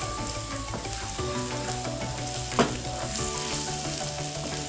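Ginger-garlic paste sizzling in hot mustard oil in a non-stick kadai, stirred with a wooden spoon, with a steady hiss and a single knock about halfway through.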